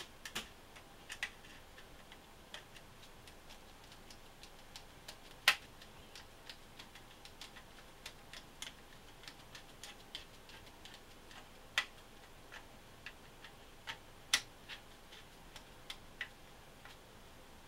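Screwdriver tightening the takedown screw that holds a Ruger 10/22's action in its stock: faint, irregular small clicks and ticks of the blade and screw as it is turned, with a few sharper clicks scattered among them.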